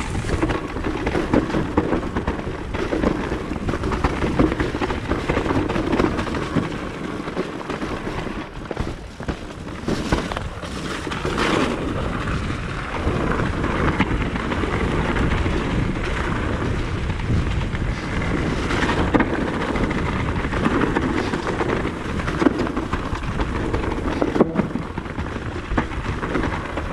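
Trail-riding noise on an electric mountain bike: wind rumbling on the microphone and tyres running over dirt, with scattered knocks and rattles from rough ground.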